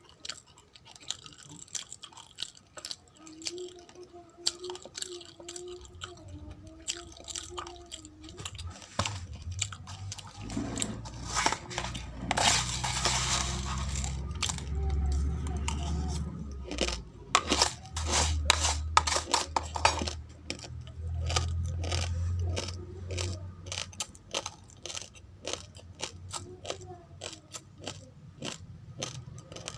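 Uncooked rice grains being chewed, a long run of sharp, irregular crunches.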